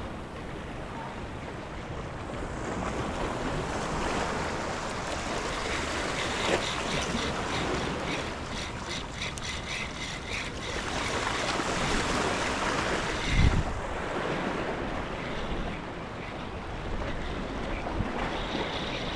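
Ocean surf washing against the shore with wind buffeting the microphone, and a low thump about thirteen seconds in.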